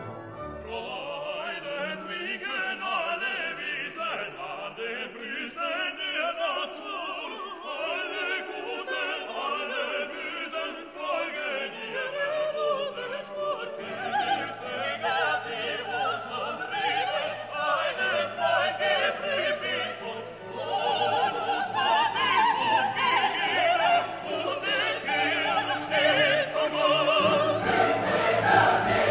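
Classical orchestral music with choir singing in an operatic style, swelling louder about halfway through.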